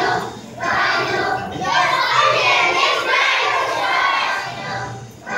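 Many young children's voices raised together, loud, with two short lulls in the first couple of seconds.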